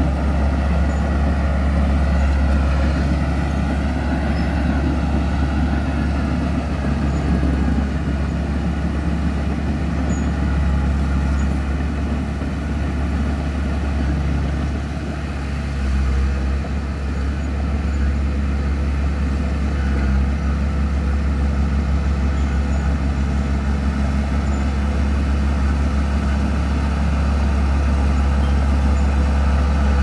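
Diesel engine of a small crawler bulldozer running steadily under load as it pushes and grades soil, with a deep, even hum. It fades a little about halfway through as the machine moves off, then grows louder again as it comes back pushing a pile of dirt.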